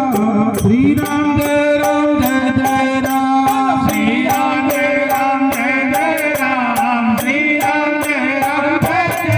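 Indian devotional music: a steady held drone under a wavering melody, with a regular beat of sharp percussion strikes.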